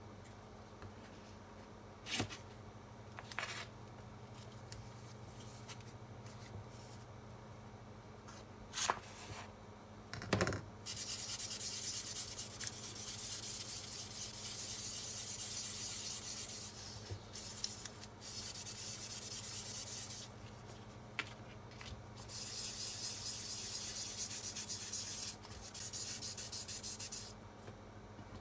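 Hand sanding: steady abrasive rubbing in three long stretches of about five, two and five seconds. A few light clicks and taps come before it.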